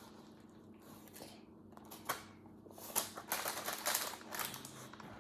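Rice Krispies treat mixture being pressed and spread in a glass pan, the crisp cereal crackling and clicking. A single click about two seconds in, then a busy run of crackly scraping from about three seconds on.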